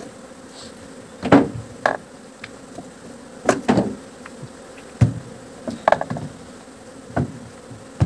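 Honey bees buzzing steadily around the open hives, broken by about eight irregular sharp knocks and clatters of equipment being handled.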